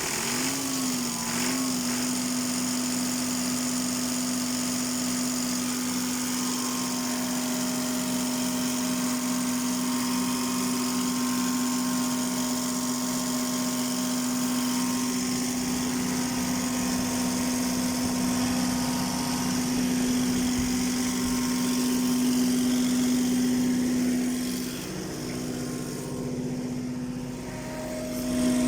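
Perkins 1103A-33T three-cylinder diesel generator engine running steadily just after starting, its pitch wavering for a moment before settling to an even speed. It runs again now that the fuel shut-off solenoid's loose wire contact has been pressed tight.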